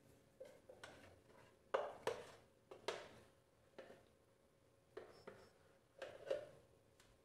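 A spoon scraping thick, soft protein ice cream out of a plastic Ninja blender pitcher into a plastic tub. It makes faint, short scrapes and knocks at irregular intervals, the loudest a couple of seconds in.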